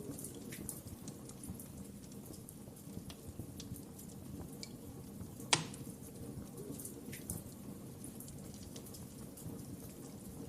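Wood fire crackling in a fireplace: a steady low rumble with scattered sharp crackles and one loud pop about halfway through.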